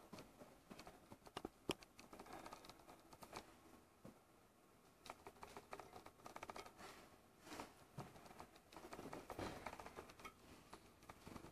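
Faint, irregular clicking and tapping of a dog's claws on a hard floor, with a quieter stretch partway through.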